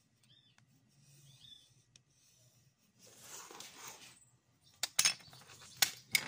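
A wooden embossing tool rubbing across paper for about a second, then a few sharp knocks as wooden hand tools are set down and picked up on the table.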